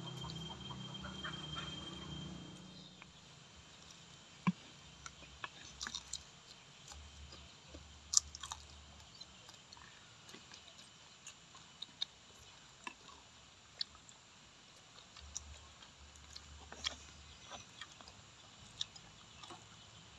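Close-up eating sounds: chewing and biting, with scattered light clicks and ticks of spoons on plates. A faint steady high tone and a low hum stop about three seconds in.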